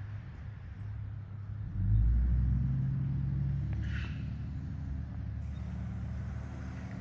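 Low engine-like vehicle rumble that swells suddenly about two seconds in and then slowly eases off, with a single short click near the middle.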